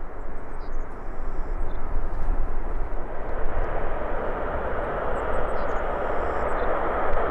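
Airbus A380 with four Rolls-Royce Trent 900 turbofans taxiing at low thrust: a steady jet rush over a low rumble, growing louder in the second half as the aircraft comes closer.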